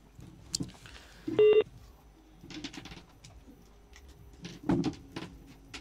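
A short electronic beep, one pitched tone lasting about a quarter of a second, about one and a half seconds in, amid faint scattered clicks. A brief muffled voice sound comes near the end.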